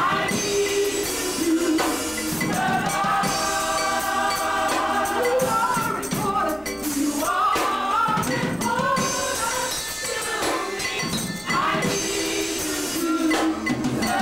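Gospel music: a choir singing over an accompaniment with percussion strokes.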